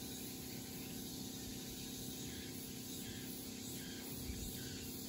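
Faint outdoor ambience: insects chirping softly over a steady low background.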